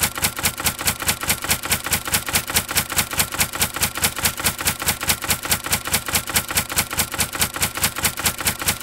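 Typewriter-style typing sound effect: rapid, evenly spaced key clicks, about five a second, each with a low thud, timed to text being typed out on screen.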